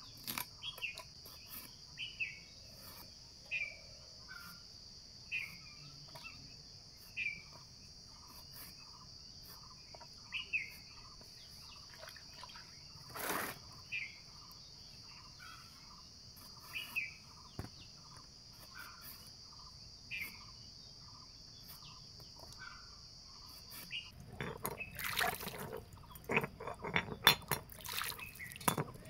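A steady high insect drone and a bird giving short repeated calls about every second and a half, with one sharp knock about halfway. Near the end the drone cuts off, and a stone muller is rolled and scraped with water over a flat grinding stone, grinding a wet paste, louder and irregular.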